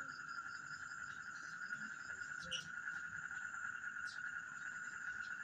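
Steady insect chorus, like crickets: a continuous drone with a fainter, rapidly pulsing high chirp over it, and a couple of faint clicks.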